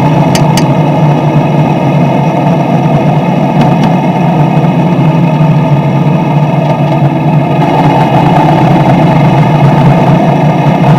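Motorcycle engine running steadily at cruising speed, mixed with road and wind noise. A couple of faint clicks come just after the start and again about four seconds in.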